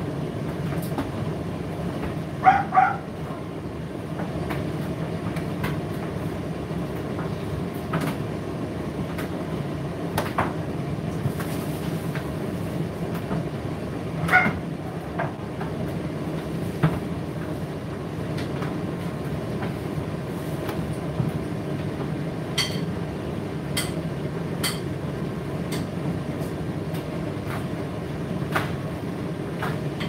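Indesit IDC8T3 8 kg condenser tumble dryer running: a steady hum from the motor and turning drum, with scattered sharp clicks, the loudest a double click about two and a half seconds in.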